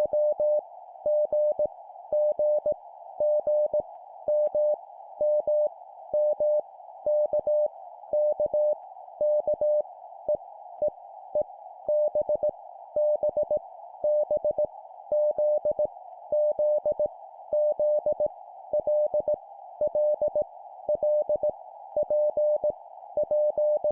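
Morse code (CW) tone sent at 17 words per minute: a single steady tone keyed in dots and dashes, random letters each sent three times, over a steady narrow band of hiss.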